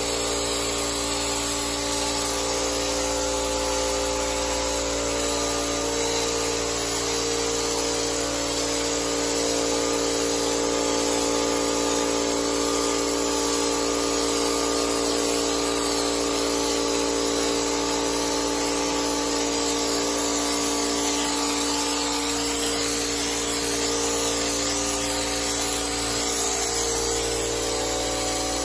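Compressed-air hopper spray gun hissing steadily as it sprays cork render onto a wall, over a steady machine hum.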